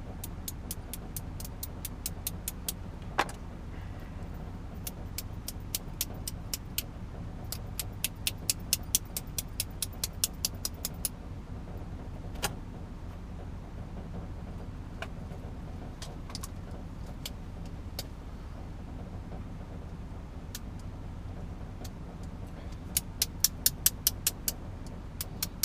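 Quick runs of small, sharp metallic clicks from a Master Lock padlock's cylinder as keys and pins are worked in it during master keying, with a few single clicks between the runs. A steady low hum sits underneath.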